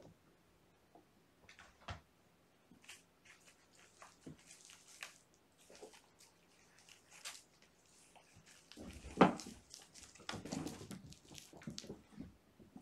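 Kittens playing and chasing on carpet: scattered soft thumps, taps and rustles of paws and small toys, with one louder thump about nine seconds in and a busier stretch of rustling just after it.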